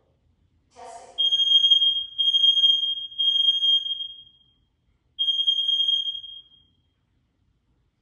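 Google Nest Protect smoke and carbon monoxide alarm sounding its siren during a self-test: three loud, high-pitched beeps in a row, a pause, then a fourth beep.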